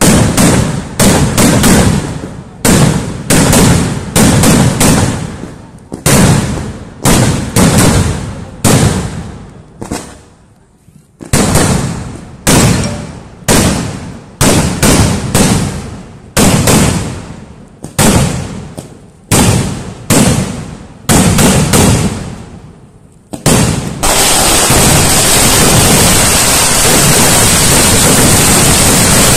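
Kerala festival fireworks (vedikettu) going off in a rapid series of loud bangs, one or two a second, each echoing away, with a short lull about ten seconds in. From about 24 seconds the bangs give way to a continuous loud rushing noise as a blinding burst goes off.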